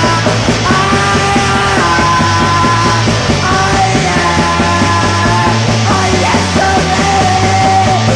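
Rock music from a full band, with held melody notes gliding between pitches over a steady beat.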